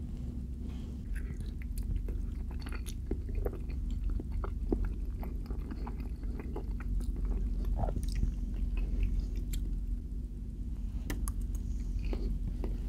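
Close-miked chewing of a mouthful of cheesy enchiladas: soft wet squelches and lip smacks, with scattered small clicks, over a steady low hum.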